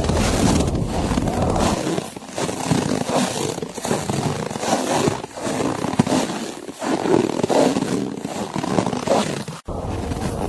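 Footsteps crunching through snow, a step about every second and a half, with wind rumbling in the background at the start and again near the end.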